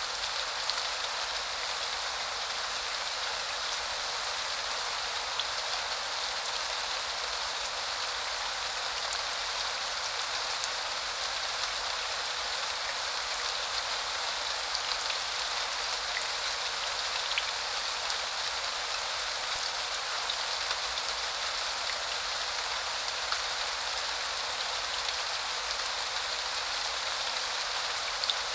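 Steady spring rain falling on surfaces, an even hiss with scattered sharper drop ticks.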